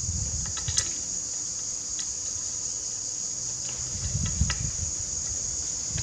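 A steady, high-pitched insect chorus, with a few light metallic clicks as bolts and washers are handled at an engine timing cover: a couple near the start and a small cluster about four seconds in.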